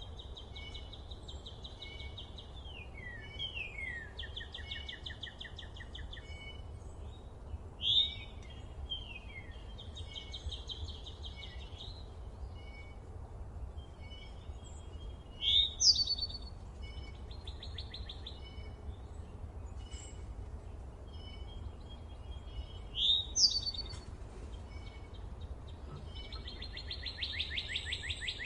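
Songbirds singing: repeated rapid trills and slurred whistled notes, with a louder sharp rising chirp three times. A steady low rumble runs underneath.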